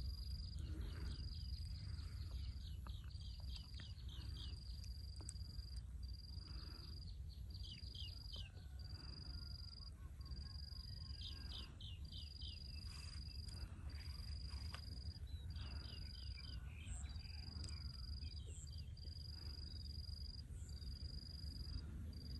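Insect trilling on one high, steady note, broken by short gaps about every second and a half. Several quick runs of falling animal chirps sound over it, with a steady low rumble underneath.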